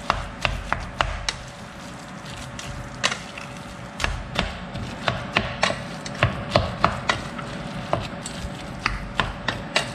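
White plastic spatula stirring raw ground-pork filling in a stainless steel pot, with irregular sharp clicks and taps as it knocks against the pot, about one or two a second.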